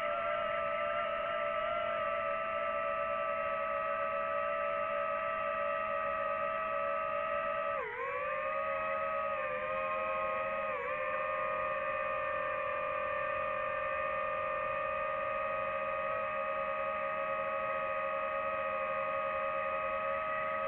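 DJI FPV drone's motors and propellers whining at a steady pitch. About eight seconds in the whine dips sharply and climbs back as the throttle changes, with a smaller dip a few seconds later.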